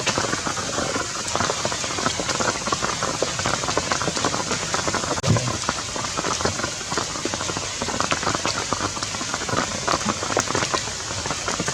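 Steady heavy rain falling, a dense stream of drops hitting surfaces.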